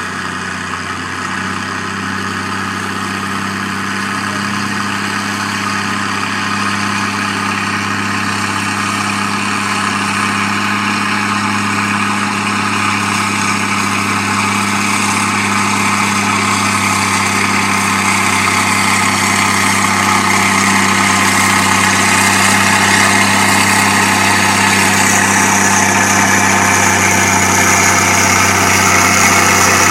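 Minneapolis-Moline G1000 four-wheel-drive tractor engine working hard at steady revs under load while pulling a sled, growing steadily louder as it comes closer.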